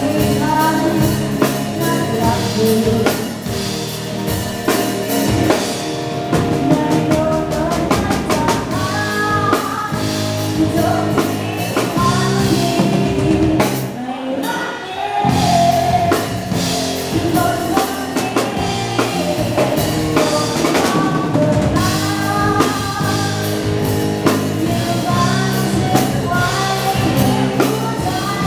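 Live band playing a dance song: a singer over drum kit and bass. The band drops out for a moment about halfway through, then comes back in.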